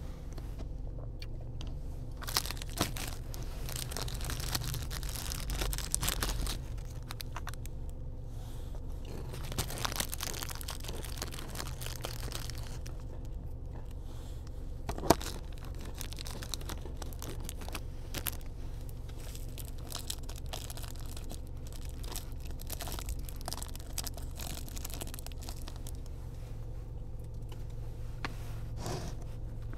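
Plastic condiment packets and wrappers crinkling and being torn open, with scattered clicks and a sharp tap about 15 s in, over a steady low hum inside a car.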